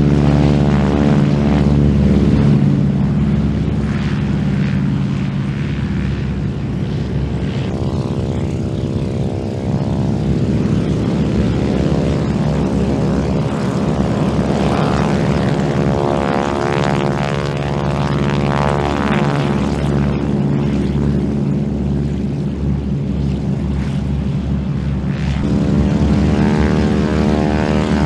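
Several SNJ/T-6 Texan trainers' Pratt & Whitney R-1340 Wasp radial engines running at high power together, with their overlapping propeller and engine notes shifting in pitch as the planes move past.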